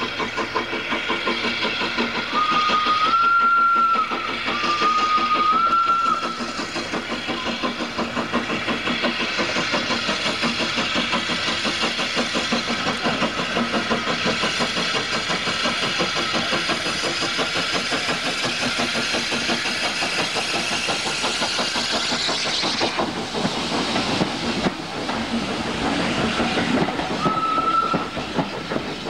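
Small steam tank locomotive working up the line with rapid, rhythmic exhaust beats. Its whistle gives two blasts a few seconds in, each stepping up a little in pitch, and one short blast near the end as the engine passes close by.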